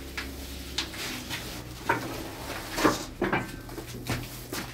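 Large woven plastic sacks rustling and bumping as they are gripped, lifted and set down: a string of short, sharp rustles and thuds, the loudest about two and three seconds in.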